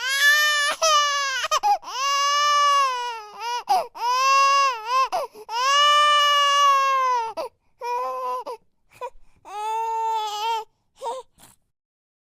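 A baby crying: a run of long, loud, pitched wails, followed by shorter, choppier cries that stop about a second before the end.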